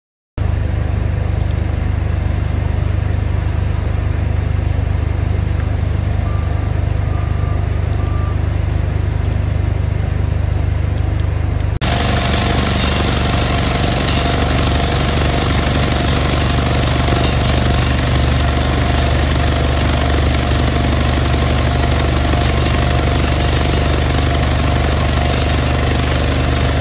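Vibroflot (depth vibrator) running in a stone column to compact the crushed-stone fill, a loud, steady low drone with a fast pulse. About twelve seconds in it changes abruptly to a brighter, noisier sound.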